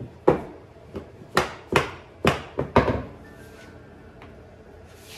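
A mallet pounding two wooden wedges together, about six sharp blows in the first three seconds, driving the friction clamp tight against the board.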